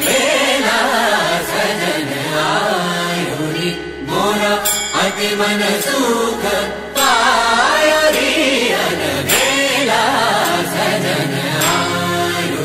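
Indian devotional-style music: a chanting voice sings gliding melodic phrases over a steady drone.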